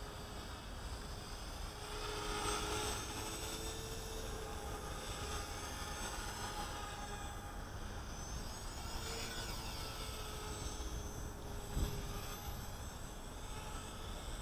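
CopterX CX250SE 250-size electric RC helicopter flying: the high whine of its brushless motor and the buzz of its rotor blades, shifting a little in pitch as it manoeuvres. A short thump comes about twelve seconds in.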